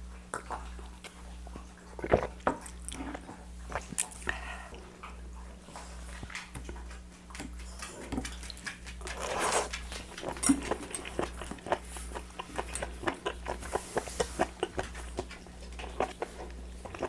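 Close-miked chewing of chewy raw spoon worm, many small wet clicks and crunches, with a dog making noise in the room and one louder stretch of sound about nine seconds in.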